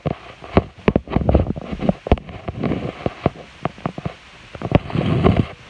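Close-up handling noise on a phone microphone: rubbing and low rumbling with many irregular knocks and clicks as the phone is moved about and set down, denser near the end.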